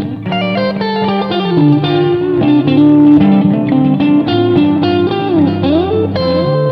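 Instrumental rock track led by an electric guitar playing a quick run of lead notes over held bass notes, with a few notes sliding down and back up near the end.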